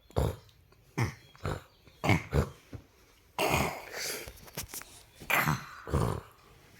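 A baby making short throaty grunts, about two a second, with a longer breathy rasp about three and a half seconds in.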